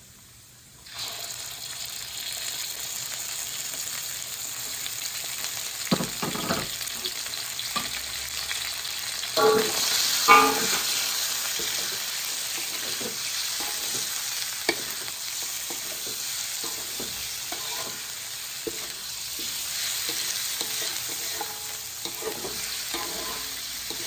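Raw chicken pieces going into hot oil with ginger, shallots and garlic, sizzling from about a second in as they start to fry. A utensil clicks and knocks against the pan now and then as the chicken is stirred.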